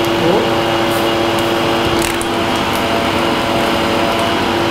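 Steady hum and whir of an electric motor or fan running, with a held low tone and a fainter high one and a few light clicks.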